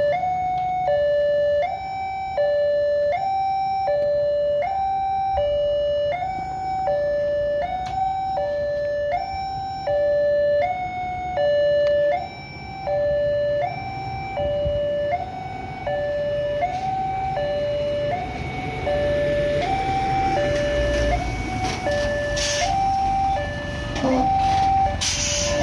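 Railway level-crossing warning alarm sounding its two-tone signal, a high tone and a low tone taking turns about once a second without a break: the crossing is closed for an approaching train. A heavy truck's engine rumble rises over the last several seconds.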